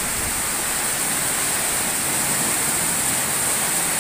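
Heavy downpour: a steady hiss of rain, with water pouring off a roof edge onto paving.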